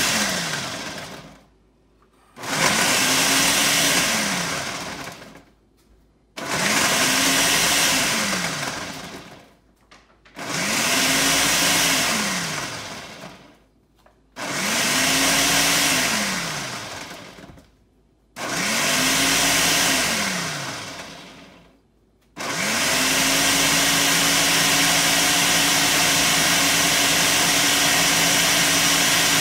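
Ninja countertop blender running its preset smoothie program on a jar of frozen fruit, spinach and water: a series of pulses about every four seconds, the motor spinning up and then winding down each time, then from about three-quarters of the way through a steady continuous run.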